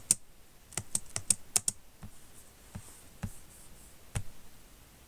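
Computer keyboard typing: a quick run of about six keystrokes about a second in, then a few single, spaced-out key taps.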